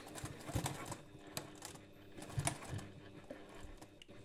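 Domestic sewing machine running slowly, basting a folded zipper end: a low motor hum with irregular clicks of the needle and feed.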